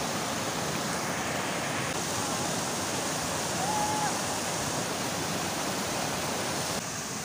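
Steady rushing of a fast, shallow river running over rocks and small cascades.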